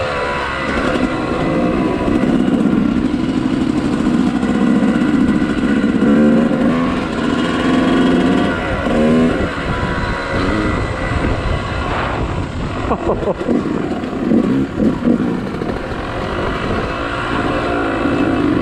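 Off-road motorcycle engine under way, its pitch rising and falling again and again as the throttle opens and closes over the track, with a few clattering knocks partway through.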